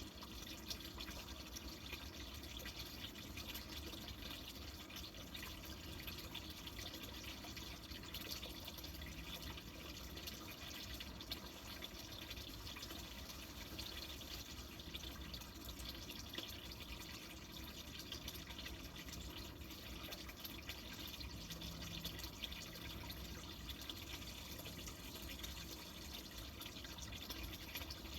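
Garden fountain water splashing and trickling steadily, with a fine dripping patter.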